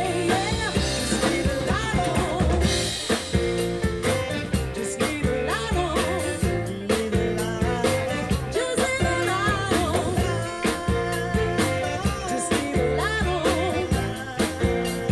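A live funk band playing with sung vocals over a drum kit, bass guitar, electric guitar and keyboards, the drums keeping a steady beat.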